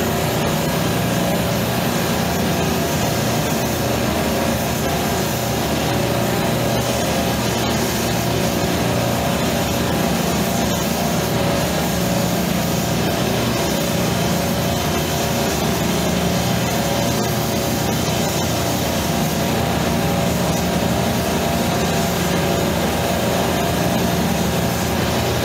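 Oxy-fuel brazing torch flame hissing steadily as it heats a copper refrigeration line, over the steady hum of running refrigeration compressors.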